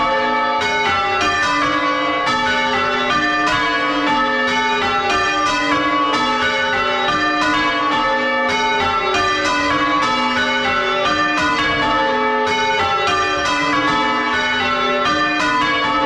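A ring of six church bells, about 9 cwt and chip-tuned, being change-rung full circle, heard close up inside the belfry: an unbroken, evenly spaced run of strikes, each bell's tone hanging on under the next.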